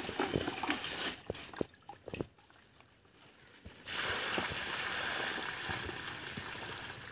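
Water splashing and sloshing, with several sharp splashes over the first two seconds, then from about four seconds in a steady rush of water that slowly fades.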